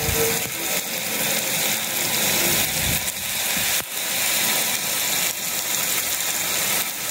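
Food sizzling steadily on the hot steel plate of a Blue Rhino Razor propane flat-top griddle, with steaks searing over a burner on high heat.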